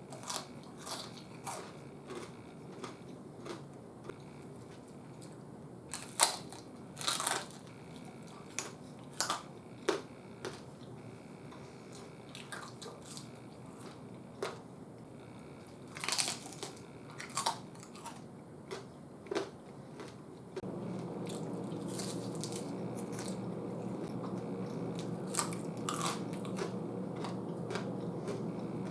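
Crisp fried pork-belly chicharrones being bitten and chewed, a string of loud, sharp crunches at irregular intervals. About two-thirds of the way in, a steady low hum starts up under the last few crunches.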